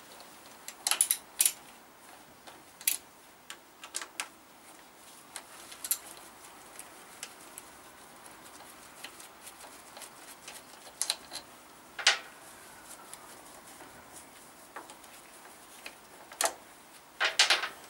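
Sparse, irregular metallic clicks and ticks, some in quick runs and the loudest about twelve seconds in, from a ratchet wrench undoing the mounting bolts of a motorcycle's front brake caliper.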